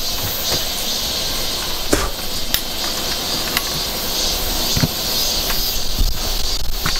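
Steady, high insect buzzing in the forest, with scattered clicks and knocks of trekking poles and boots against rock as a hiker scrambles up a boulder.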